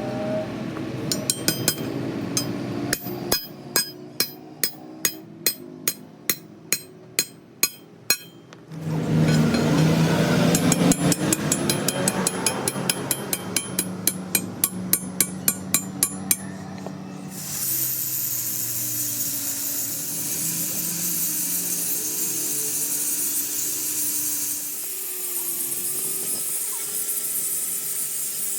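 Repeated hammer blows on metal, about two a second, during a heavy truck front axle repair. Later the blows give way to a steady hiss.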